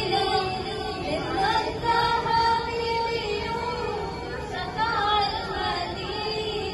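Women's voices singing a naat, a devotional song in praise of the Prophet Muhammad, with long held and sliding notes, amplified through a microphone.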